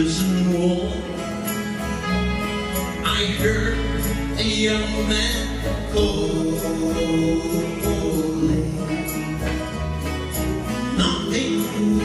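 Live music: an acoustic guitar strummed under two male voices singing into microphones.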